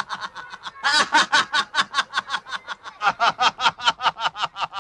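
Cartoon bully character laughing in a long run of rapid, even snickers, about six a second, with short breaks about one second in and near three seconds in.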